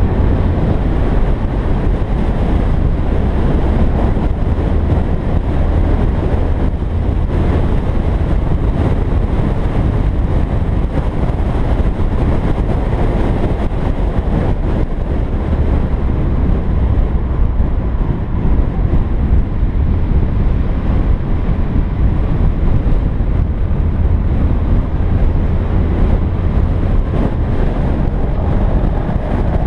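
Steady rumble of a car driving along, engine and tyre noise heavily overlaid by wind buffeting the microphone of a camera mounted on the outside of the car.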